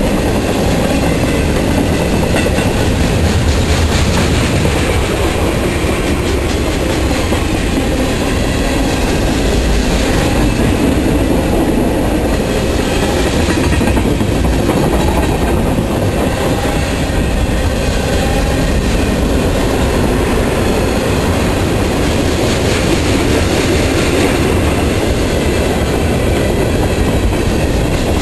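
Mixed freight train of boxcars, tank cars and autoracks passing close by, its wheels running steadily and loudly over the rails.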